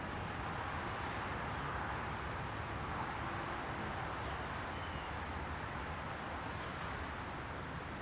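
Steady outdoor background rush with three faint, brief, high-pitched songbird chirps scattered through it.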